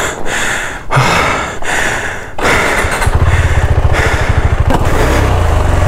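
KTM 390 Adventure's single-cylinder engine running at low revs, its exhaust pulsing rapidly and evenly, loud from about halfway on. Before that there is a rushing noise with short breaks.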